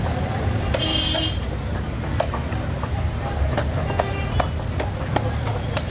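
Busy street-market ambience: a steady low rumble of road traffic, a short horn toot about a second in, and scattered sharp knocks and clatter.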